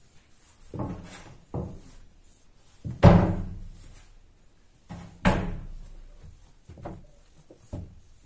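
A series of dull thumps and knocks, the loudest about three seconds in and another about five seconds in, each dying away over about a second.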